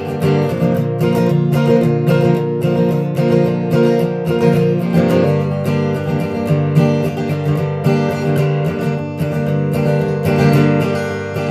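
Acoustic guitar strummed in a steady rhythm, playing an instrumental break between sung verses of a comic country song.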